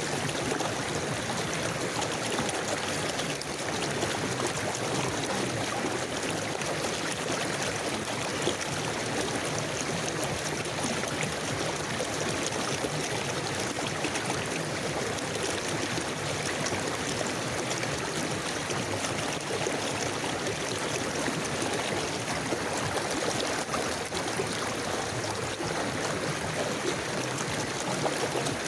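Shallow river water flowing and babbling steadily, an even rushing with small trickles and gurgles.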